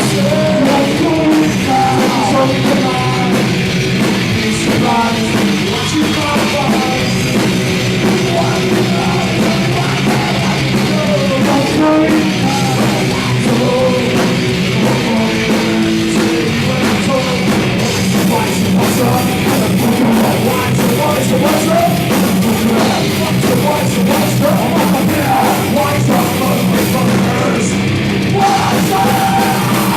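Live rock band playing a loud song, with drum kit and singing.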